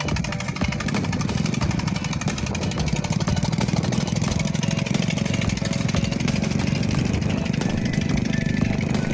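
A small engine running steadily, with a fast, even pulsing.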